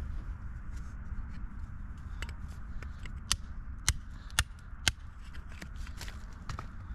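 Rock pick tapping on stone: four sharp clicks about half a second apart in the middle, among lighter taps, over a steady low rumble.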